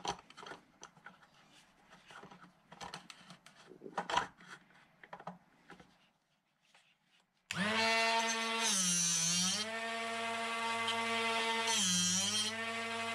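Electric drill-bit sharpener: light clicks and rubbing as the drill's chuck is handled, then, a little past halfway, the motor switches on suddenly and runs with a steady whine. Twice the pitch sags and a grinding hiss rises as the drill bit is pressed to the wheel, one grind on each flute.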